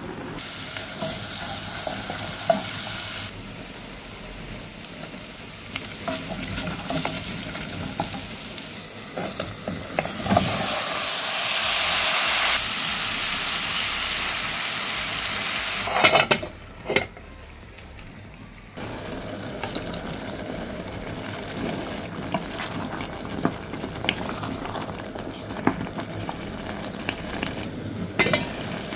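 Food frying and sizzling in a steel pot on a stove, with a wooden spatula stirring and scraping. The sizzle gets louder for a few seconds in the middle and cuts off and restarts abruptly a few times.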